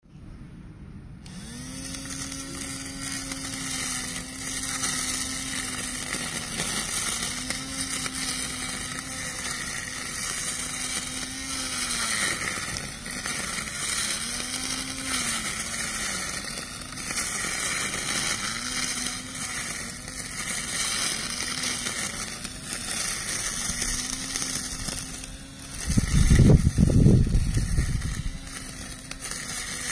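Cordless battery string trimmer's electric motor whining steadily over the hiss of its line cutting through tall grass, its pitch sagging briefly every few seconds as the line bites into thicker growth. A loud low rumble lasts about a second and a half near the end.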